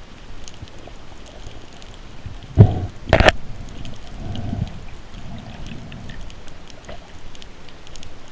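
Water noise with faint scattered crackling ticks, broken a little before the middle by two loud knocks about half a second apart; the second is the sharper.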